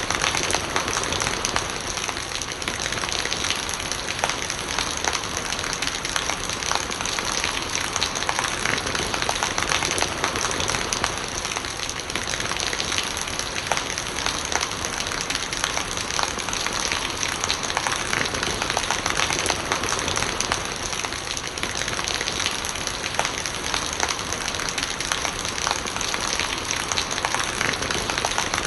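Steady rain, with many separate drops striking surfaces and rainwater gurgling as it runs off.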